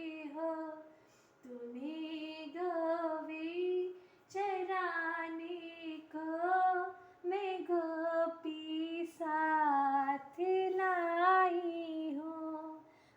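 A female voice singing a Krishna bhajan solo and unaccompanied, in short melodic phrases with brief breaths between them.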